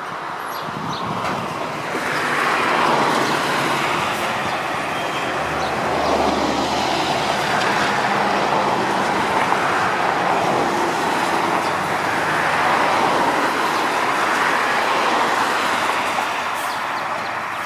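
A garbage truck running close by, a loud, steady mechanical noise that swells and eases several times.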